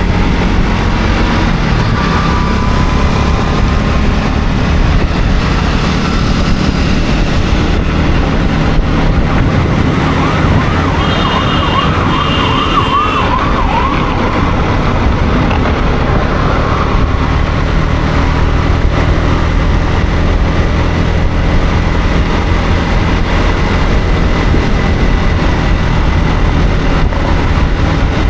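Yamaha MT-15's single-cylinder engine running steadily under way, with road and wind noise. About ten seconds in, a quick up-and-down siren warble sounds for a few seconds, with two short high beeps alongside it.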